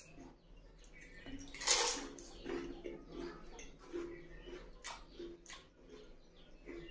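Pani puri being eaten: one loud wet crunch about two seconds in, then repeated wet chewing sounds as the crisp fried puri filled with pani is chewed.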